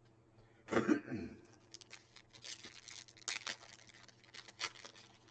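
Baseball cards being handled and flipped through by hand: an irregular run of dry, papery clicks and scratchy rustles. A short vocal sound comes about a second in.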